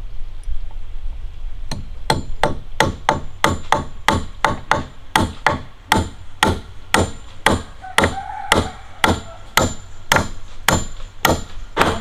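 Hammer blows on a wooden frame: a steady run of sharp strikes, a little over two a second, starting about two seconds in.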